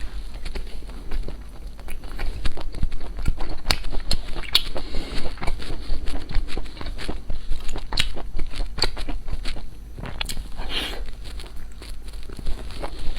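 Close-miked eating sounds: a person biting and chewing food, with many irregular sharp crunchy clicks and crackles, over a low steady hum.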